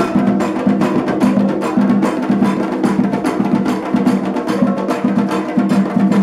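Afro-Brazilian ritual percussion: atabaque hand drums with other struck percussion playing a fast, dense rhythm.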